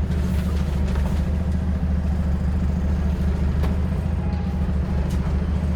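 Bus heard from inside the cabin while running, with a loud, steady low drone. It is the horrible droning the bus makes on this journey. A few faint clicks or rattles come over it.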